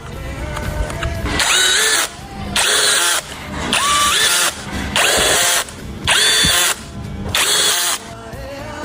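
Power drill/driver run in about six short bursts, each spinning up to a steady whine and stopping after roughly half a second.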